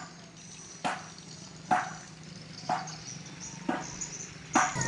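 Slow footsteps on a wet road, one even step about every second, each a short slap.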